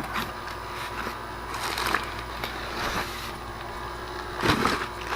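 Packaging being handled and opened: irregular crinkling and scraping, with a louder rustling bump about four and a half seconds in.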